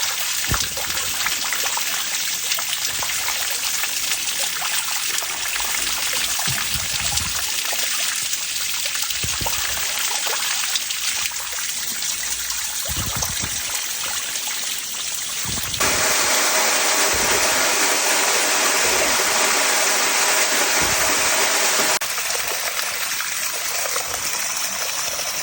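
Running water trickling and gushing steadily, from runoff or a spring bubbling up after heavy rain. It changes abruptly in level and character about 16 and 22 seconds in, and there are a few dull low thumps.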